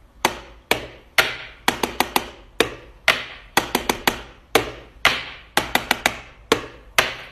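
Wall rocker light switch being flicked on and off again and again, about twenty sharp clicks at an uneven pace, some in quick runs of two or three, each trailing off briefly.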